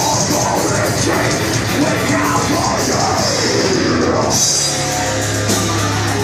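Heavy metal band playing live: distorted electric guitars and a drum kit with crashing cymbals, loud and dense. About four and a half seconds in, the band moves onto a held low chord.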